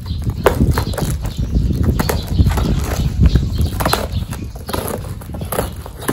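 A knife slicing along the packing tape and cardboard of a long shipping box, in irregular scraping and ripping strokes, over low rumbling handling noise.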